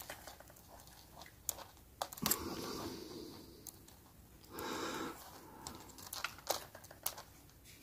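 Faint small clicks and taps of fingers and a small screwdriver handling the plastic chassis and wire valve gear of a Hornby West Country OO gauge model locomotive during reassembly, with two short soft rustles in between.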